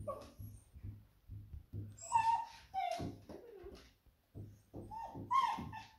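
Beagle whining and whimpering in excited, high-pitched calls, a few in a row about two seconds in and again near the end, with soft regular tapping beneath. The whines are the excitement of a dog eagerly greeting her returning owner.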